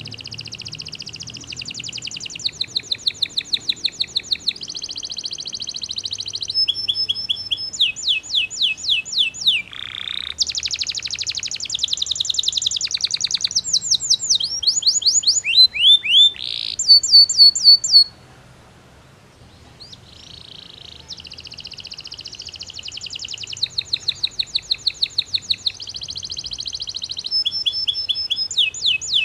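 Belgian canary singing a long, high-pitched song of fast trills and rapidly repeated rolling notes, with a pause of about two seconds a little past halfway before the song resumes.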